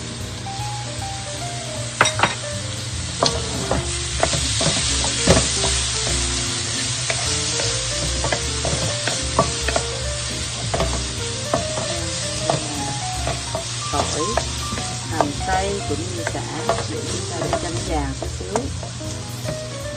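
Food sizzling in a wok as it is stir-fried and scraped with a wooden spatula, with scattered sharp knocks of utensils against the pan. Background music plays throughout.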